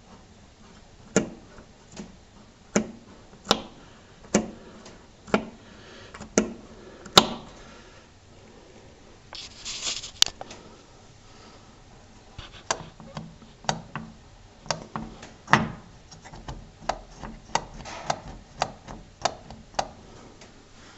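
Sharp wooden clicks and knocks, about one a second at first and quicker later, with a short rustle about ten seconds in, as a hand works the wooden lever and threaded-rod linkage of a model railroad's hump-yard retarder.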